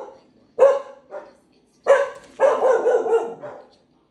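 Australian shepherd barking in alert, a run of about six barks with a quick cluster of them in the middle.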